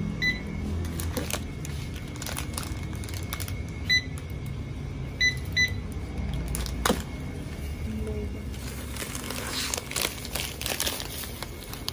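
Short high beeps of a checkout barcode scanner as items are scanned, four in all: one near the start and three between about four and six seconds in, over a low steady hum. A plastic bag rustles from about nine seconds in.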